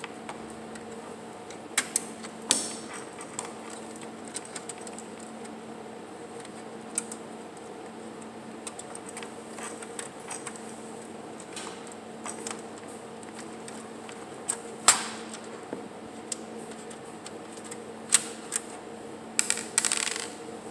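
Scattered metallic clicks and clinks from hands unscrewing and working loose the power supply in a Dell Optiplex 755's steel chassis, over a steady low hum. The loudest click comes about fifteen seconds in, with a quicker run of clicks near the end.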